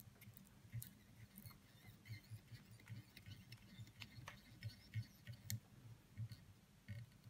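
Faint scattered ticks and soft low taps of hands and a thread bobbin working at a fly-tying vise, as tying thread is wrapped to bind a raffia strip onto the hook.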